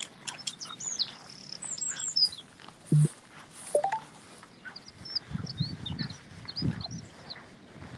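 Small songbirds chirping and singing, in quick high twittering phrases near the start and again in the second half. A brief loud low thump comes about three seconds in.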